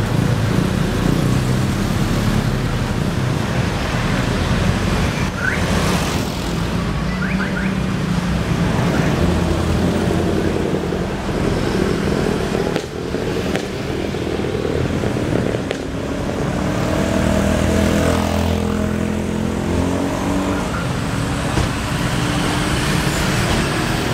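Street traffic dominated by an intercity coach's diesel engine running as it pulls through, with motorcycles and cars around it; the engine note rises clearly for a few seconds past the middle as the coach accelerates.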